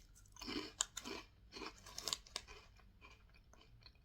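Close-up crunchy chewing of a sugar-coated Happy Turn rice cracker: a quick run of sharp crunches that softens to quieter chewing near the end.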